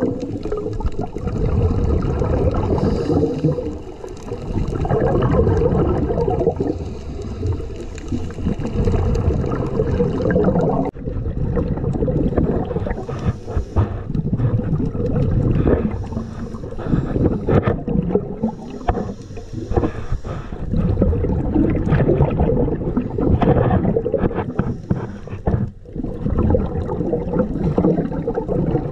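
Muffled underwater sound from a camera submerged over a reef: a steady low rush and gurgle of moving water against the housing, with brief hissy bursts every few seconds.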